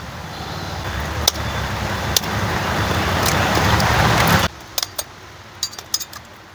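A steady noise with a low rumble grows louder for about four and a half seconds and then stops suddenly. Through it and after it come sharp clicks as eggs are tapped open against a knife blade.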